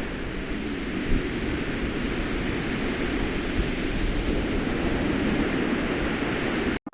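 Steady outdoor rushing noise with a flickering low rumble, which cuts off suddenly near the end.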